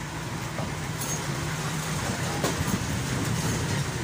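Steady low motor rumble, with a faint click about two and a half seconds in.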